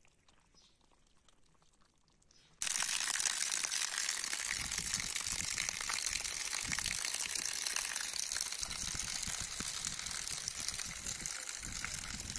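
After a couple of seconds of near silence, a loud, steady rush of water starts suddenly: water spurting up out of a waterlogged patch of grass, with uneven low rumbling underneath.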